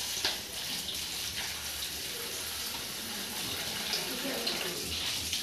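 Water from a tap running steadily and splashing into a steel bowl of green chillies being rinsed by hand, with a couple of light knocks near the start.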